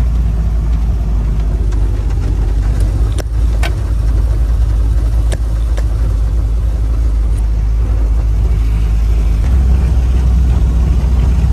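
Volkswagen Caribe Mk1's carbureted engine running as the car drives, heard from inside the cabin, with the carburetor partly clogged. A few sharp clicks come a few seconds in, and the engine note shifts near the end.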